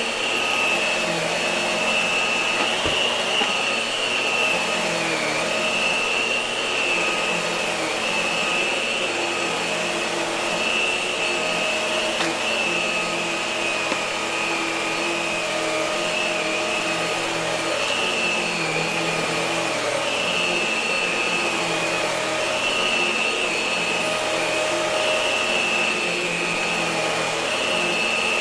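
Hart vacuum cleaner running steadily, its high motor whine dipping slightly in pitch every couple of seconds.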